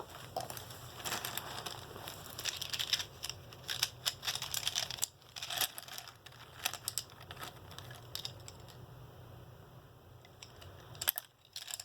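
Handling of items in a pencil pouch: rustling and a scatter of light clicks and taps as pens, pencils and glue sticks are picked up and moved, thinning out toward the end.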